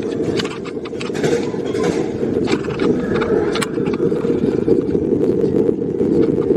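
Matterhorn Bobsleds coaster car running along its tubular steel track: a steady loud rumble of the wheels, with many quick rattling clicks and knocks from the car.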